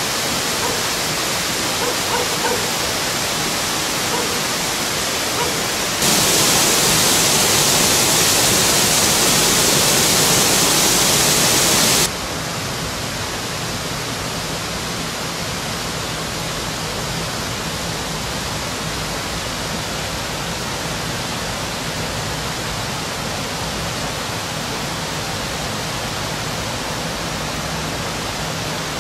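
Steady rush of a mountain torrent's water. It turns suddenly louder and brighter about six seconds in, then drops back abruptly about twelve seconds in.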